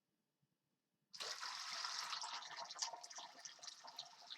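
Water being poured into a basin. It starts suddenly about a second in and runs as a steady splashing stream that slowly eases.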